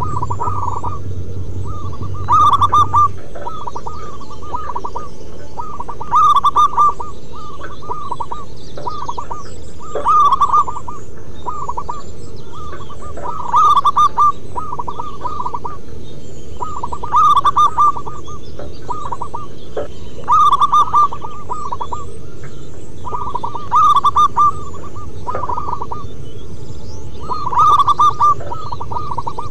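Zebra doves singing: rapid runs of short, clipped coos, one loud phrase about every three and a half seconds, with fainter coos in between.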